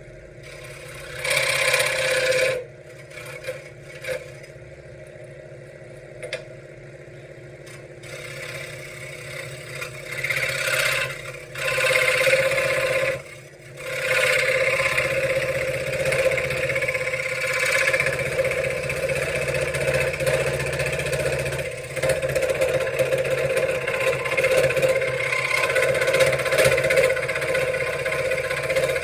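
Benchtop scroll saw running, its blade cutting wood in short spells early on and then steadily from about halfway through.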